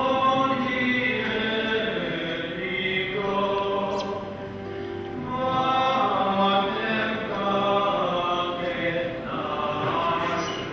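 Voices singing a slow liturgical hymn during Mass, with long held notes that swell and fade.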